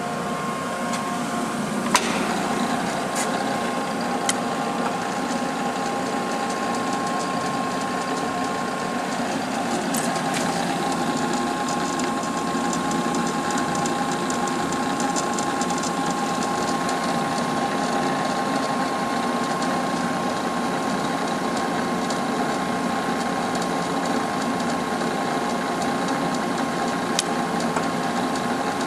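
16" x 36" Cincinnati universal cylindrical grinder running under power: a steady mechanical hum with a steady whine. A sharp click comes about 2 seconds in, where the whine shifts pitch, and a few more single clicks follow, one near the end.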